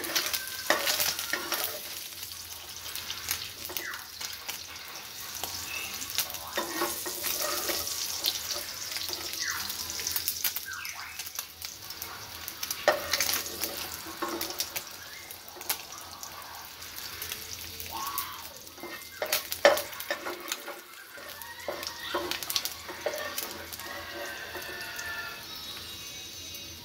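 Hot oil sizzling and crackling in a non-stick frying pan as small fried mola fish are scooped out with a perforated metal slotted spoon, with irregular clicks and scrapes of the spoon against the pan.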